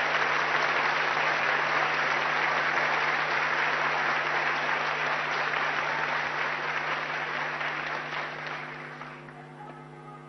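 A large conference-hall audience applauding. The clapping is sustained and dense, then thins out and dies away in the last two seconds.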